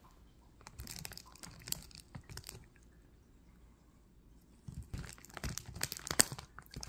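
A cat biting and chewing on a Mylar snack bag, the foil crinkling and crunching in sharp clicks. It comes in two spells, one in the first few seconds and another from about five seconds in, with a quieter pause between.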